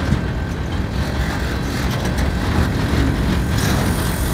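Freight train of loaded flatcars rolling past: a steady low rumble of wheels on the rails, with a few faint clanks.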